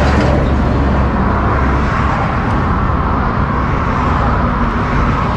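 Steady outdoor road-traffic noise with no speech, with a low engine hum in roughly the first two and a half seconds.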